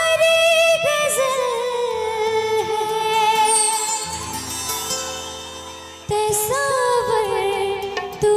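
Hindi love-song ringtone: a high voice sings long, wavering notes over backing music. The music fades partway through, then comes back in suddenly about six seconds in.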